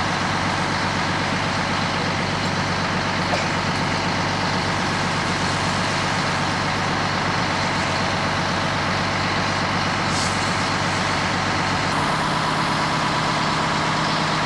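A fire engine running steadily while its pump feeds a hose, with the hiss of the hose stream spraying onto a burning pickup truck. About twelve seconds in, the engine note changes.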